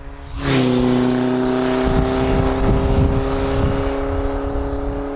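Kawasaki KZ1000J's 998cc inline-four engine comes in suddenly about half a second in and runs loud and steady at high revs, its pitch sagging slightly toward the end.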